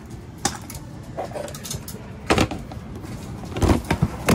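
A few short knocks and scuffles in a pigeon loft at feeding time, with the loudest about two seconds in and a cluster near the end.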